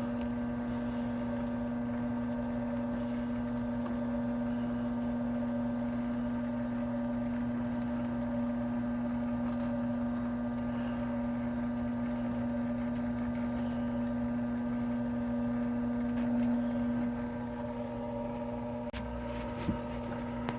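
Rose engine lathe running steadily, a constant hum with one clear held tone. The hum eases slightly near the end, with a few light clicks.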